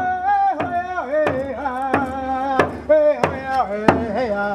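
Native American hand frame drum struck with a beater, roughly two beats a second, under a man's chant of long held notes that slide down at their ends.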